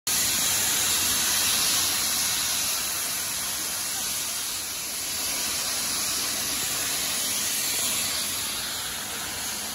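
Steam locomotive Bahamas, an LMS Jubilee class 4-6-0, venting steam in a steady hiss that eases a little after about two seconds.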